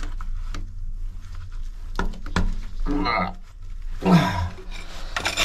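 A few clicks and knocks, then two short strained grunts about three and four seconds in, as a stiff inspection cover on a sewer backflow valve is worked open. A steady low hum runs underneath.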